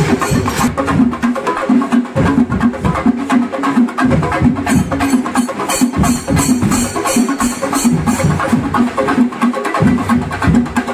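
Chenda melam: a group of chenda drums beaten with sticks together with elathalam hand cymbals, playing a dense, continuous rhythm.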